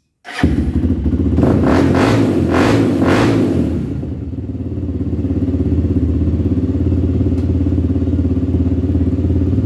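Honda 300EX's single-cylinder four-stroke engine running, revved in several surges over the first few seconds and then settling into a steady idle.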